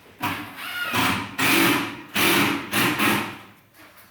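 A power tool run in short bursts, about five in a row, each roughly half a second long.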